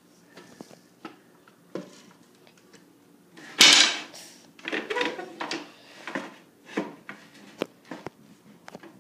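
Wooden boards and furniture being shifted and knocked into place on a tile floor: scattered wooden knocks, with one loud, brief scrape about three and a half seconds in, then more knocking and handling.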